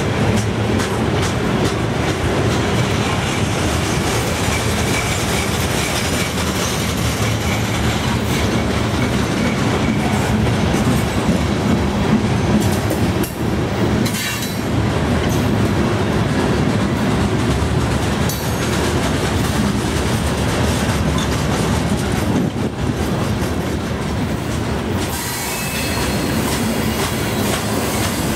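Loaded rock hopper cars of a freight train rolling past in a steady rumble, wheels clacking over the rail joints. A thin, high wheel squeal joins in near the end.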